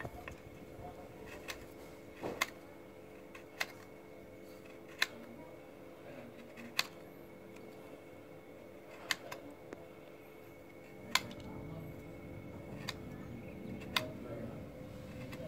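Small knife shaving a lump of palm sugar over a stone mortar: sharp clicks every second or two as the blade strikes and scrapes, with a faint steady hum underneath.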